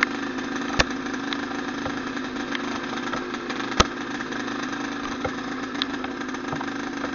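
Trail motorcycle engine running with a steady, even note. Two sharp knocks come through it, one about a second in and a louder one near the middle.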